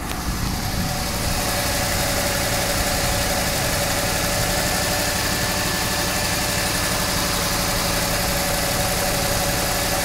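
Jeep Grand Cherokee engine running at a steady idle, a little louder over the first second.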